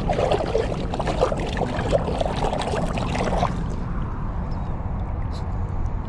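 Shallow river water splashing and trickling, with many small splashes that stop about three and a half seconds in, over a steady low rumble.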